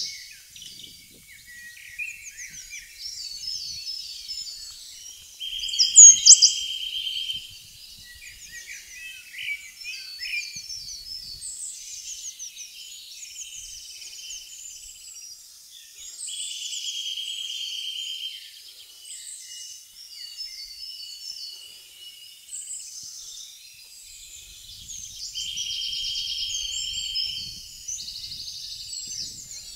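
Several songbirds singing at once, a busy mix of high chirps and warbled phrases. A buzzy trill of about two seconds comes back three times, roughly every ten seconds, and one loud sharp chirp comes about six seconds in.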